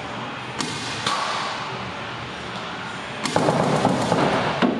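Paintball marker firing reusable rubber reballs: two single shots about half a second apart near the start, then a rapid volley lasting about a second and a half near the end.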